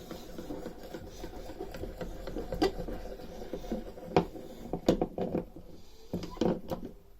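A hammer tapping lightly and quickly on a new gearbox roller bearing to seat it in its housing: a fast, dense run of small metallic ticks, then a few separate louder knocks in the second half.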